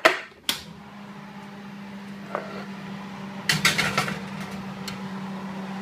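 A metal muffin tray going into an oven: a couple of knocks at the start, then the steady hum of the oven with its door open, and a clatter of the tray on the oven shelf about three and a half seconds in.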